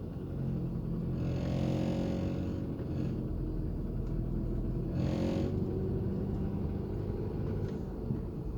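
A 2013 Nissan Sentra's 1.8-litre four-cylinder engine running as the car accelerates, heard inside the cabin. A buzzing dashboard rattle comes in about a second in for a second and a half, and again briefly around five seconds. The rattle shows up under light-to-medium throttle and stops when the transmission shifts up or the pedal is pressed harder.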